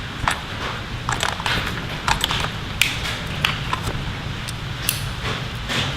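Small metal hand tools from a Wera miniature ratchet set, its bits, sockets and miniature screwdriver, clicking and rattling lightly as they are handled, in a string of irregular sharp clicks.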